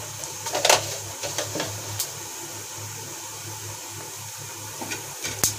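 Cumin seeds sizzling in hot oil in a kadhai: a steady hiss with scattered crackles, the sharpest pops about a second in, around two seconds in and near the end.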